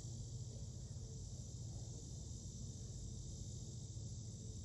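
Steady, high-pitched chorus of insects, with a faint low rumble underneath.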